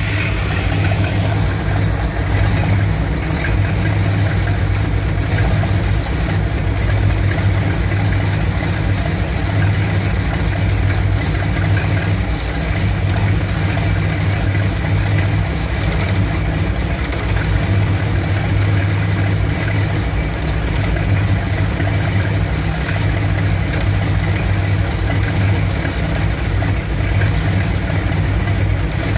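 1975 Dodge B200 van's Mopar 360 small-block V8 with a two-barrel carburettor idling roughly once warmed up, its beat uneven; a freshly changed ignition coil has not cured the rough idle.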